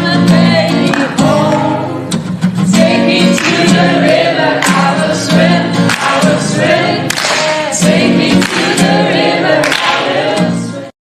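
Gospel worship song sung by a group of voices, cutting off abruptly near the end.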